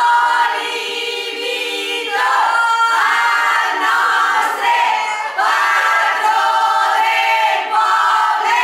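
A group of women singing together loudly, in long held notes.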